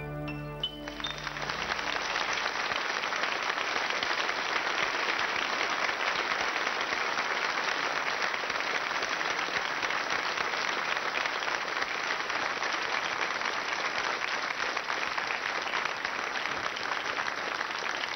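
The song's accompaniment ends with a quick rising run of notes over a fading held chord, and a studio audience breaks into applause about a second in. The clapping then goes on steadily.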